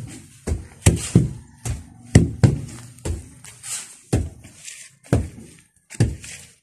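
Wooden hand tampers striking bare earth to compact soil fill, a dull thump with each blow. About two blows a second, unevenly spaced as two tampers work in turn.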